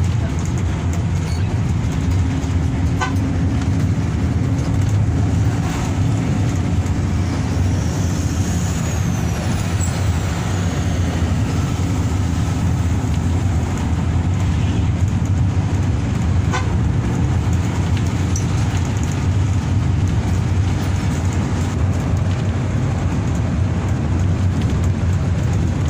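Hino RK8 R235 bus engine running steadily under way with tyre and road noise, heard inside the cabin as a continuous low drone. A faint high tone rises and falls briefly about eight seconds in.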